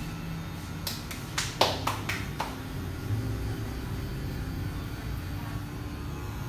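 Barber's hair clippers being handled: a quick run of about six sharp clicks and knocks over a second and a half, as a small trimmer is swapped for a larger clipper, over a low steady hum.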